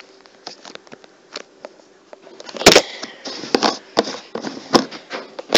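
Plastic container and its snap-on lid being handled and opened: a run of clicks, knocks and rustles, sparse at first and denser in the second half, with the loudest knock about two and a half seconds in.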